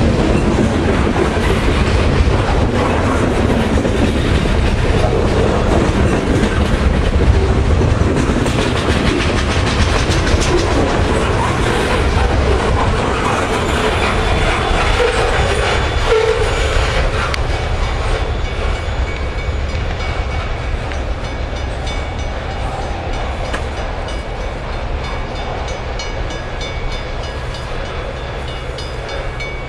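A freight train's cars rolling past close by, a steady noise of steel wheels on the rails. The noise eases off gradually in the second half as the train moves away.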